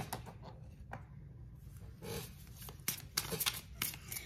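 A deck of tarot cards being shuffled by hand: soft rustles and quick flicks of card stock, with a cluster of card snaps about three seconds in.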